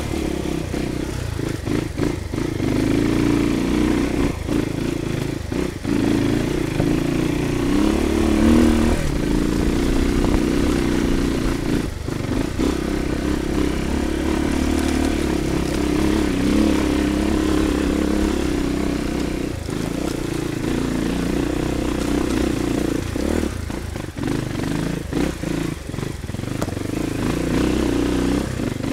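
Crossfire 250 dirt bike engine running as the bike is ridden along a rough dirt trail, the engine note rising and falling as the throttle is opened and eased, with brief dips now and then.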